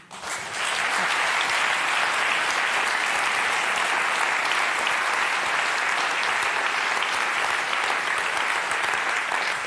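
Studio audience applauding. The clapping swells up in the first half second, then holds steady and dense.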